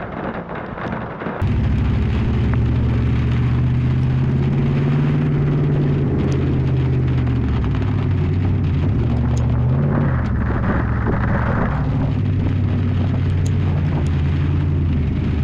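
An engine or motor running steadily with a low hum, starting suddenly about a second and a half in, with a brief hiss about two-thirds of the way through.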